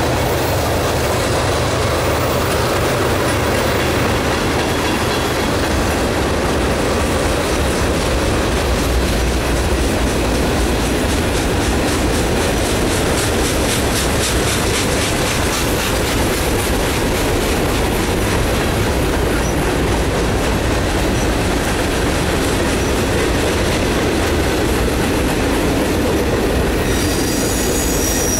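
Freight cars of a long mixed freight train rolling past, their steel wheels rumbling and clacking steadily on the rails. A thin high squeal comes in near the end.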